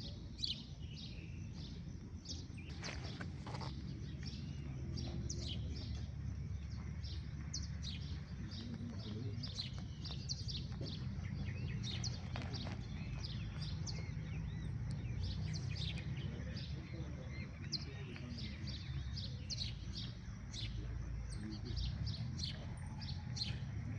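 Birds chirping, many short high calls repeating throughout, over a steady low rumble.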